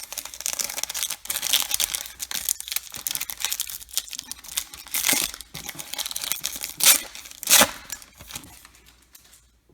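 A baseball card pack's plastic wrapper being torn open and crinkled by hand: a dense crackling rustle with a few louder rips about five and seven seconds in, dying away near the end.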